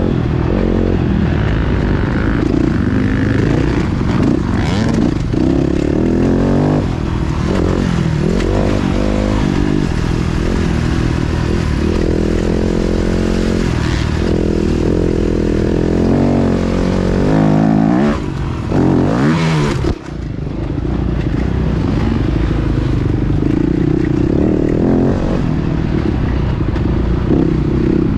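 Yamaha YZ250F four-stroke single-cylinder motocross engine heard from on board while being ridden, its revs rising and falling through the gears. About twenty seconds in the throttle shuts off sharply, then the engine picks back up.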